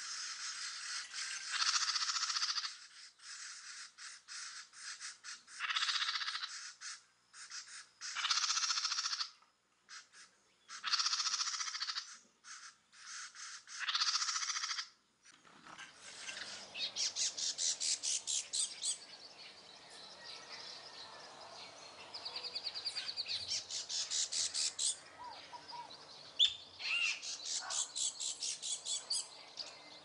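House wrens calling: first a series of harsh, raspy calls, each about a second long, every two to three seconds; then, about halfway, rapid chattering trills of song in three runs.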